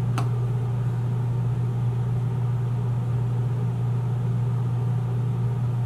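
A steady low hum runs on without change, with one short click just after the start.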